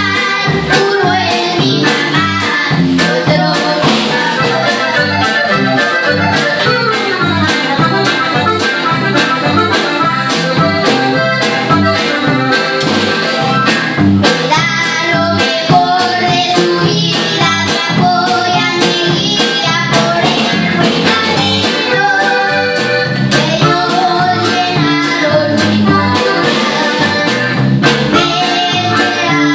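Norteño song played on a button accordion, bajo quinto and drum kit, with a steady beat of about two drum strokes a second and boys' voices singing.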